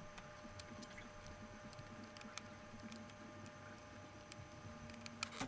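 Faint light clicks of a precision screwdriver working a small screw into a Contax G1 camera's top plate, with the metal camera body handled. A quick run of clicks comes near the end, over a faint steady hum.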